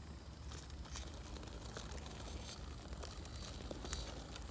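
Redcat Gen7 RC rock crawler creeping slowly over a concrete block, its tyres crunching on grit and dry pine needles, with scattered small clicks and ticks.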